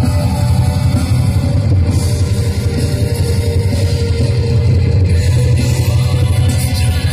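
A symphonic black metal band playing live at full volume: electric guitar and drum kit in a dense wall of sound with a heavy, dominant bass low end.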